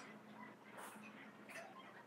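Near silence with a faint low hum and a few soft ticks and mouth sounds of someone eating with a fork.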